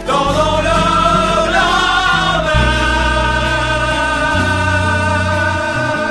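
French Christian song: a sung note that wavers, then settles about halfway through into one long held note, over a changing bass line.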